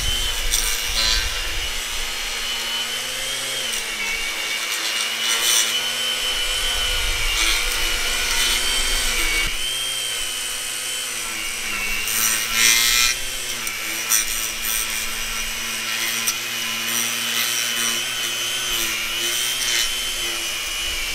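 EGO 56-volt 8-inch battery lawn edger running with its blade cutting into turf and soil: a steady electric motor whine with scraping from the blade. The pitch sags briefly several times as the blade takes load.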